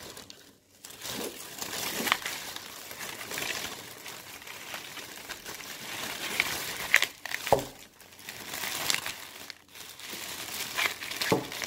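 Brown honeycomb kraft-paper packing wrap crinkling and rustling as it is pulled apart and crumpled by hand to unwrap an item, going on and off with a few short pauses.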